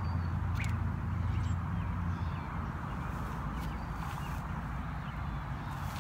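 Wind buffeting the microphone as a steady low rumble, with a few faint clicks and faint bird chirps.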